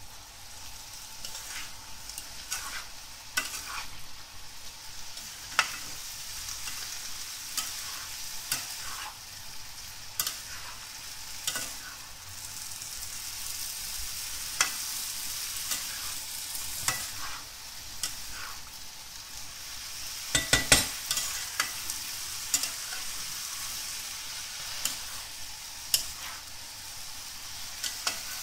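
Chopped bottle gourd sizzling in a frying pan over a high flame while being stirred, the spatula scraping and tapping against the pan with many short clicks. A cluster of louder knocks comes about twenty seconds in.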